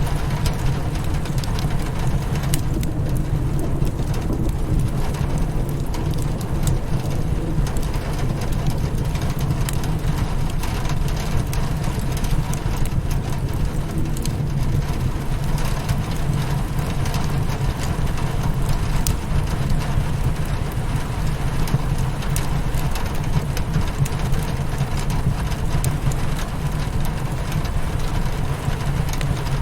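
Rain pattering on a window pane, mixed with a wood fire crackling in a fireplace, over a steady low rumble.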